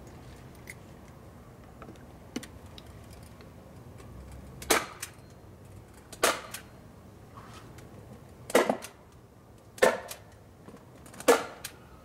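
Hand staple gun firing five times, about one and a half seconds apart, fastening 30-weight roofing felt to a wooden beehive: loud sharp snaps, with a few faint ticks before them.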